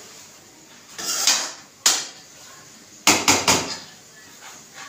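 Metal spoon scraping and knocking against a metal karahi while mashing eggs into a potato and pea mixture: a scrape about a second in, a sharp clink near two seconds, then three quick knocks about three seconds in.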